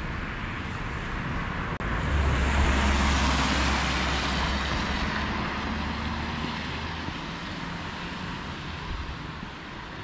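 A motor vehicle passing: its noise swells about two seconds in, holds for a few seconds with a low hum underneath, then slowly fades.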